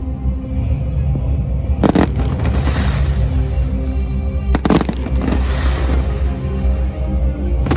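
Aerial fireworks bursting twice, about two seconds in and again near five seconds, each bang trailing off into a second of hiss, over loud music with a heavy bass.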